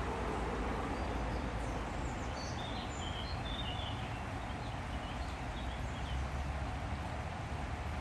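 Shallow river water running steadily, with a low rumble underneath. A small bird chirps a few times in the first half.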